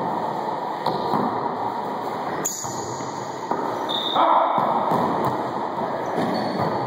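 Wallyball being played in an enclosed, echoing racquetball court. There are sharp ball hits, the clearest about two and a half seconds in, over a steady din of players moving on the hardwood floor.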